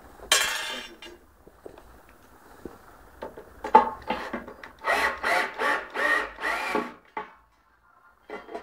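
Power drill driving small screws in short trigger bursts: one burst just after the start, then a quick run of short pulses in the middle.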